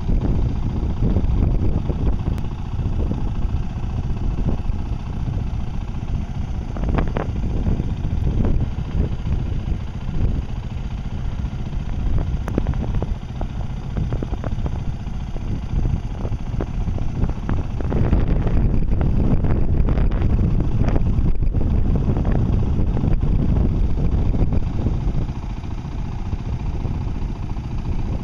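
Strong wind buffeting the microphone in a low, uneven rumble that swells and eases in gusts, loudest about two thirds of the way through.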